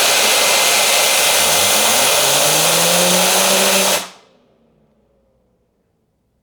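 Electric air duster blowing with a loud, steady rush of air that cuts off suddenly about four seconds in. Under the blast, a whir rises in pitch as the PC's rear case fan is spun up by the airflow, then winds down for a second or so after the duster stops.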